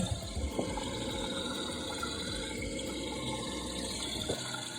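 Toilet tank refilling through a newly installed Korky fill valve after a flush: a steady rush of running water.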